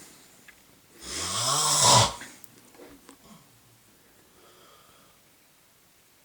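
A sleeping man snoring loudly: one long snore about a second in, rising in pitch.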